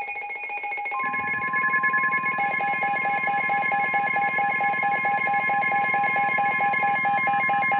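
Emergency Alert System attention signal ahead of a severe thunderstorm warning: several steady, high-pitched electronic tones sounding together, joined about a second in by a low buzz and, a little later, by a rapidly pulsing lower tone.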